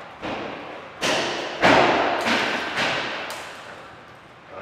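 Heavy aquarium rockwork stones thudding and knocking against each other and the tank as they are set down, about six thuds in a row, each trailing off in a short echo. The loudest comes about a second and a half in.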